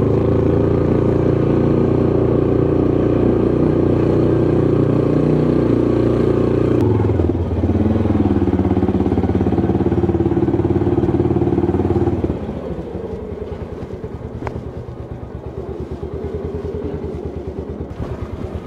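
An engine running steadily and loud. Its pitch shifts about seven seconds in, and about twelve seconds in it drops to a quieter, fast, even pulsing.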